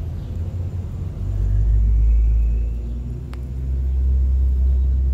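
A low, steady rumble that swells louder about a second in and again near the end, with one faint click a little past three seconds.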